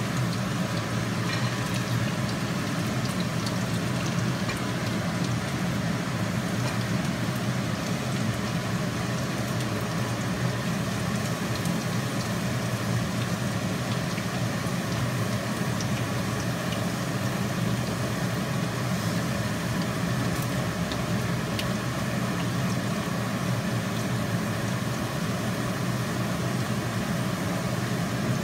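Chopped garlic sautéing in hot oil in a wok, a steady sizzle, over a steady low hum.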